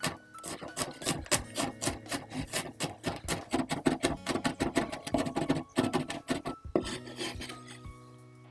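Chinese cleaver rapidly chopping garlic on a wooden cutting board: quick, even knocks several times a second, stopping about seven seconds in.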